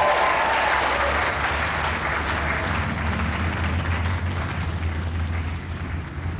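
Audience applause, thinning out gradually, over a steady low rumble.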